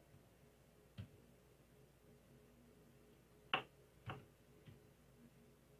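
Four sparse key presses on a Brydge 12.3 aluminium Bluetooth keyboard as a pairing passcode is typed in, the loudest about three and a half seconds in, over faint room tone.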